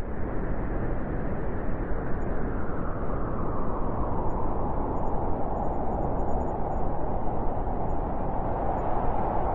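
Blizzard wind blowing steadily, a dense rushing noise with a howling band in the middle range that grows a little stronger toward the end.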